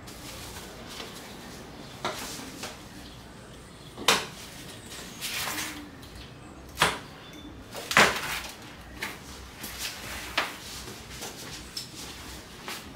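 Scattered knocks, clicks and clinks of parts and tools being handled while assembling an electric dirt bike, with the sharpest strikes about four and eight seconds in.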